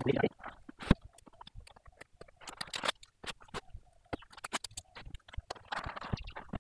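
Cardboard shipping box being handled and its taped edges worked open: crackling, scraping cardboard and tape, with one sharp knock about a second in.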